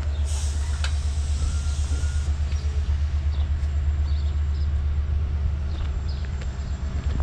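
Train running with a steady low rumble that pulses rhythmically, with scattered light clicks and a hiss lasting about two seconds just after the start.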